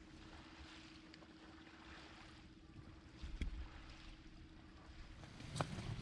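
Heavy mesh bags of oysters being handled on a boat deck: a dull thump about halfway through and a louder knock near the end, over wind and a faint steady hum that stops shortly before the end.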